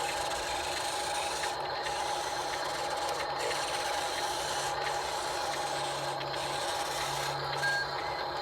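Diecast Masters Cat 950M 1/24-scale remote-control wheel loader running, a steady motor whine over a constant rasping noise.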